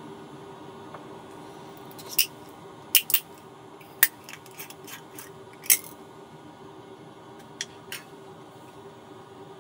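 Metal screw cap being twisted off a small glass bottle: a run of sharp clicks and cracks as the seal breaks, then two light taps as the cap is set down on the table, over a steady low hum.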